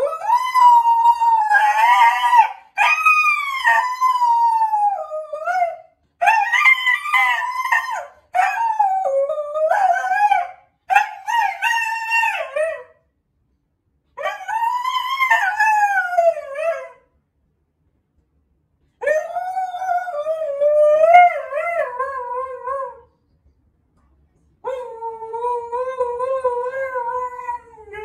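Dog howling: a series of about eight long, wavering howls, each a few seconds long with short pauses between them, the last few lower in pitch and steadier.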